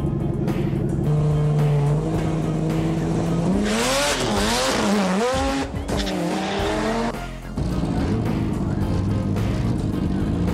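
Drag-race car tyres squealing for about four seconds in the middle, the pitch wavering up and down over a hiss, then cutting off abruptly. Background music and car sound run before and after.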